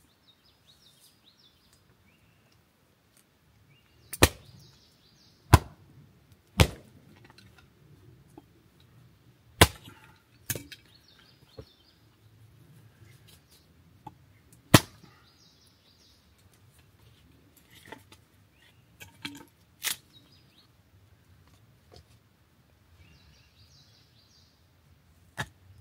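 Sharp knocks or cracks, about eight of them at irregular intervals over some twenty seconds, with faint bird chirps between them.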